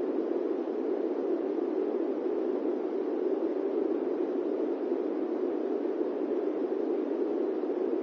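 Fan running with a steady, even rushing noise, deep rather than hissy, that does not change.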